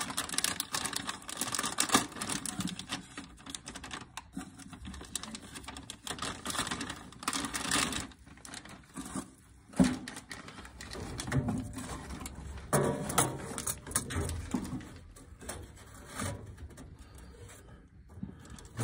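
Irregular clicks, taps and rustles of handling as a replacement furnace control board is fitted into its mounting, with one sharp knock about ten seconds in.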